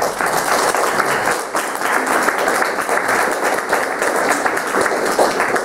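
Audience applauding: a dense patter of many hands clapping that thins out near the end.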